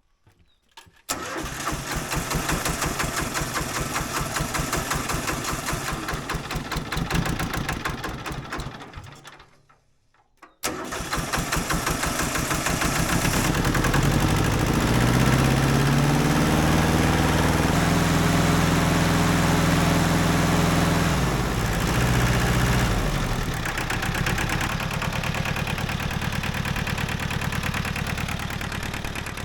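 Hinomoto E14D compact tractor's diesel engine starting and running, then dying away about nine seconds in. It starts again, its pitch rises and falls back as it is revved, and it settles to idle.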